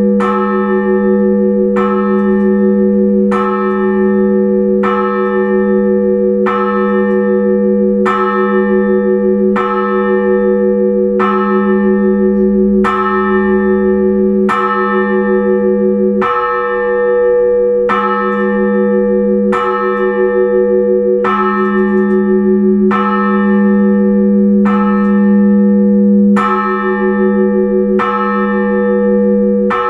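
Russian Orthodox church bell tolled in single strokes at a steady, even pace, about one stroke every second and a half. Each stroke rings on into a deep hum that carries through to the next. This is the bell ringing that calls the faithful to the liturgy.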